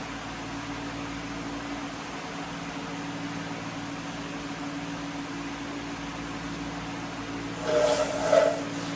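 Steady machine hum with two low tones, and a short two-part clatter about a second before the end.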